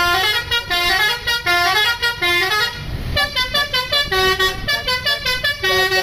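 A tour bus's basuri telolet horn playing a fast tune of short stepped notes, breaking off for a moment about three seconds in and then carrying on.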